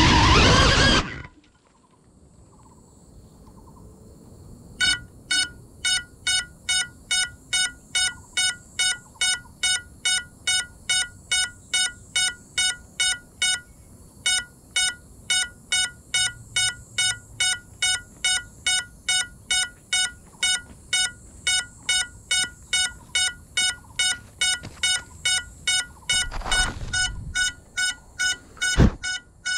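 An FPV quadcopter's motors whine briefly and cut off as it crashes into the grass. After a few seconds its lost-drone alarm starts, beeping steadily about twice a second. Near the end a rustle and one sharp knock sound over the beeping.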